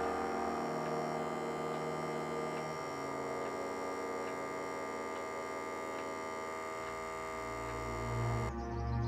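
Electric stairlift motor humming steadily as the chair carries its rider down the stairs, with faint regular ticks. The higher part of the hum cuts off suddenly near the end.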